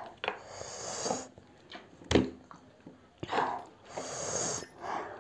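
People eating noodles and meat: chewing and short noisy breaths, with one sharp click about two seconds in.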